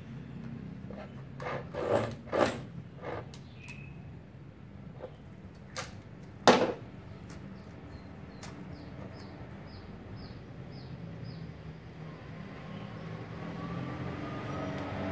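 Clicks and knocks of a metal spool of flux-core welding wire being fitted onto the spool holder of a MIG welder's wire-feed compartment. There are a few sharp knocks, the loudest about six and a half seconds in, over a low steady hum.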